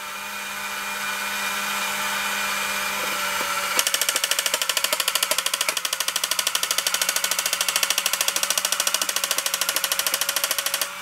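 Battery-powered toy tank running on its tracks: a steady electric motor and gear whirr with a few held tones, then about four seconds in a fast, even rattle of about six clicks a second starts, the toy's firing sound effect over the motor.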